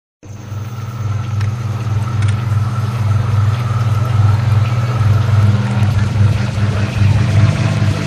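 Running dishwasher: a steady low mechanical hum with a few held tones over a wash of noise, coming in just after the start and building over the first second.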